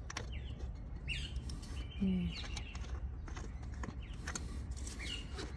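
Faint scattered clicks and scrapes of a spin-on diesel fuel filter being screwed by hand onto its metal filter head. A few short high chirps come through it, and a low hum runs underneath.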